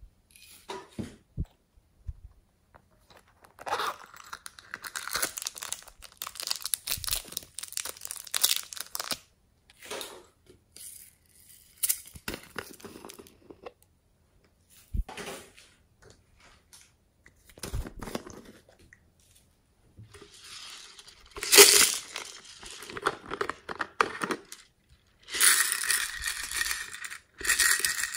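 Hands working clay and foam pieces into glossy slime in a glass dish: bursts of sticky handling noise separated by short pauses. Near the end, small silver beads are poured into a palm.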